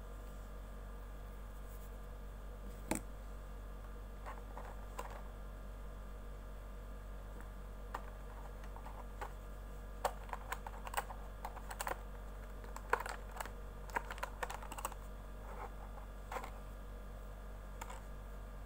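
Small clicks and taps of hands handling an inPods 12 earbud box, its plastic insert, charging case and earbuds: scattered single clicks, a sharper one about three seconds in, and a dense run of them in the middle, over a steady low hum.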